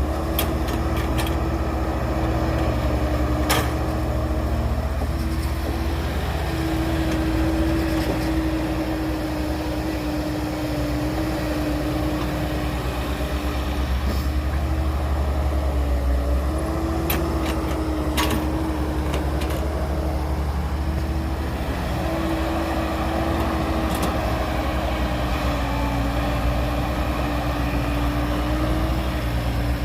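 Heavy diesel earthmoving machine engine running steadily, with a steady whine over it and a few sharp knocks.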